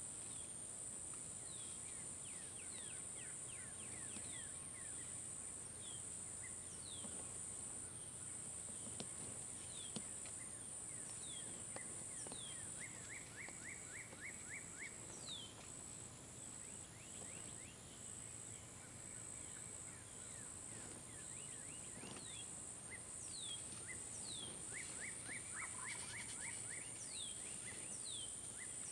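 A steady high buzz of insects, with songbirds calling over it: many short falling chirps and two quick trills of rapid repeated notes.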